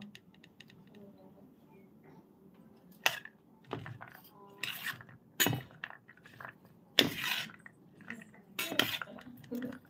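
Steel spoon clinking and scraping against a steel plate while tossing chopped vegetables and sprouts. After a quiet start, a run of sharp clinks and short scrapes comes about once a second, the loudest about seven seconds in.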